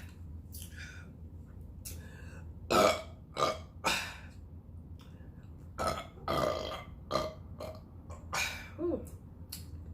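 A person burping repeatedly: a run of about nine short burps, the first the loudest, the last one wavering in pitch.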